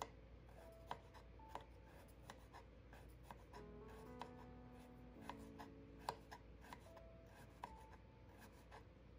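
Knife slicing fresh turmeric root, the blade tapping a wooden cutting board in irregular sharp clicks, over soft background music.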